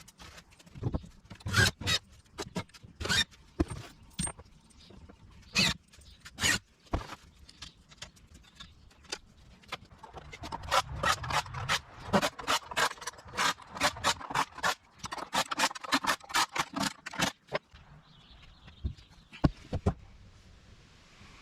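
A series of sharp metal clicks, knocks and scrapes from hand work on a small steel-framed trailer with wooden sides, with a dense run of quick clicks in the second half.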